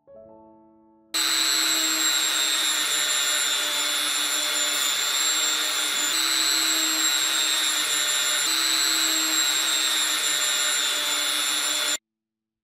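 Small handheld rotary tool running at high speed with a green abrasive wheel, polishing the tip of a soldering iron: a steady high whine that starts abruptly about a second in and cuts off suddenly near the end.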